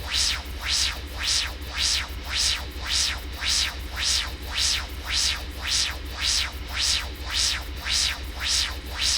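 Synthesized spaceship warp-drive reactor core sound effect: a steady deep hum under a rhythmic pulsing hiss, nearly two pulses a second.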